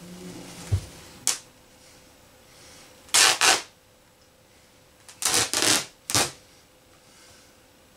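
Plush fabric and seams of a large stuffed toy dog being torn apart by hand: a short rip about a second in, a double rip around three seconds, and a cluster of rips between five and six seconds.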